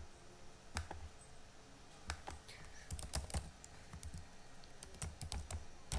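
Keystrokes on a computer keyboard typed in short runs with pauses between, several in quick succession about three seconds in and again near the end.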